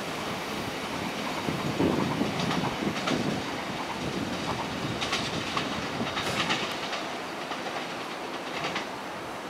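Puyuma TEMU2000 tilting electric multiple unit pulling out of the station, its wheels clacking over rail joints and points with a steady rolling rumble. The sound eases a little in the last couple of seconds as it draws away.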